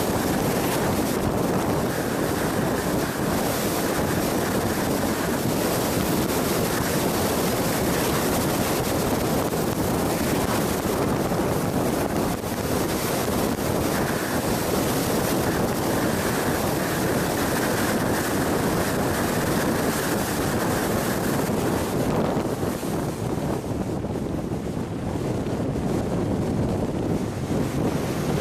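Steady rush of wind buffeting the microphone and tyre noise from a Jeep driving at highway speed. The hiss thins and drops a little near the end.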